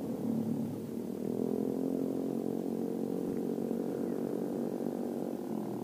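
Bicycle rear freewheel ratcheting while the rider coasts, a steady whirring buzz that briefly falters near the end.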